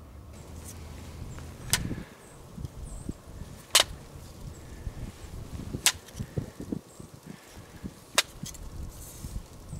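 Spring-loaded rifle carry handle being swung by hand, snapping into its locked positions with four sharp metallic clicks about two seconds apart, amid light handling rustle.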